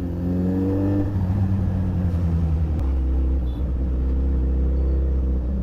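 Suzuki Hayabusa's inline-four engine running while riding: the engine note climbs in the first second, eases off, then holds steady at a lower pitch.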